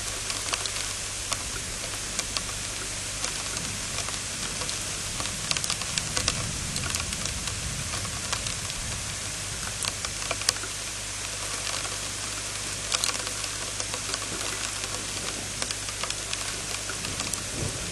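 Heavy rain falling as a steady hiss, with irregular sharp taps of drops striking close to the microphone.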